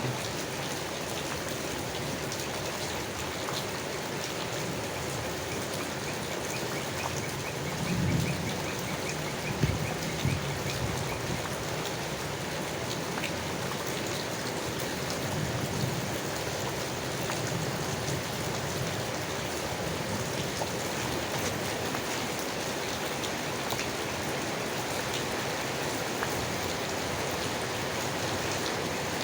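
Steady rain falling on leaves, an even patter of drops, with a few low thuds about eight and ten seconds in.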